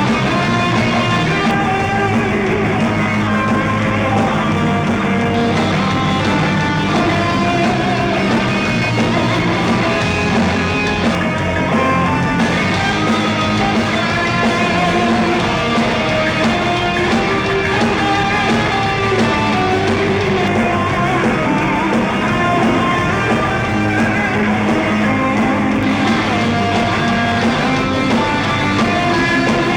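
Live rock band playing continuously, electric guitar carrying the melody over the band.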